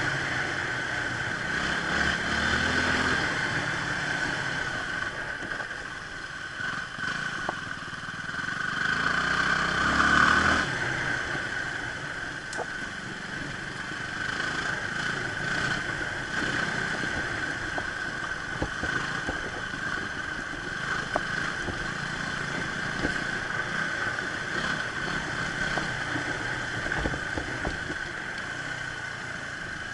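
Motorcycle engine running while riding, revs rising near the start and again about ten seconds in, then holding fairly steady.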